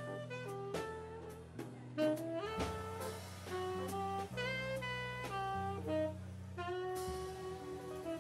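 Jazz combo playing: a saxophone solo over bass and drums.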